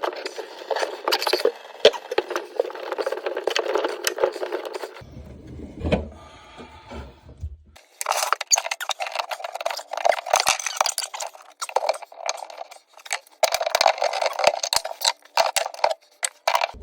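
Scraping and scrubbing on the sink top, full of small clinks and rattles, in two long stretches broken about five seconds in by a quieter lower-pitched pause of about three seconds.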